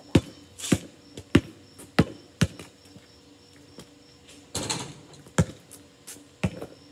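A basketball being dribbled, single sharp bounces about every half second, then a pause with a brief rushing noise, then two more bounces near the end.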